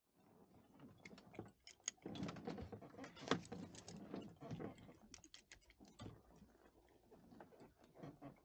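Faint, irregular clicking and crackling, many small ticks in quick succession, densest in the middle and thinning out toward the end.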